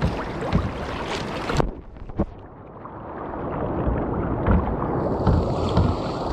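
Choppy sea splashing around a sea kayak, with wind on the microphone. The sound drops suddenly about one and a half seconds in, then slowly builds back up.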